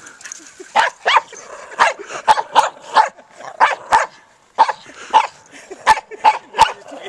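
A dog barking over and over in play, about a dozen short, sharp, fairly high barks in quick succession.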